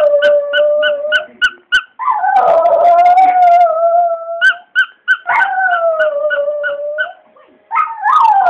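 Border Terrier howling in four long drawn-out howls, each starting higher and settling lower in pitch, with short breaks between them. A rubber squeaky toy is squeezed over them, about four squeaks a second.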